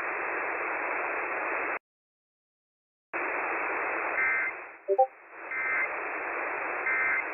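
Radio static hiss through a narrow receiver band, which cuts out completely for about a second near the two-second mark. When it returns, three short warbling data bursts come about a second and a half apart: the digital SAME header tones that open an Emergency Alert System message. A brief loud blip falls between the first two bursts.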